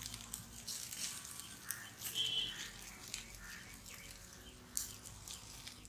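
Wood fire and embers under roasting chickens crackling, with scattered small pops and a short high chirp about two seconds in.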